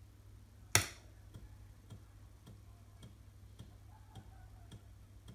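One loud clack from the Amiga 500's 3.5-inch floppy drive as the disk comes out, about a second in. The empty drive then ticks faintly and evenly, about twice a second. This is its usual no-disk click, the drive checking for a disk.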